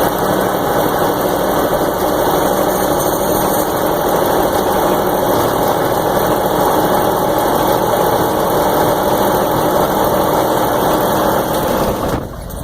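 M925 5-ton military cargo truck's diesel engine running steadily, making an unusual noise that the owner cannot identify. The sound drops somewhat in level near the end.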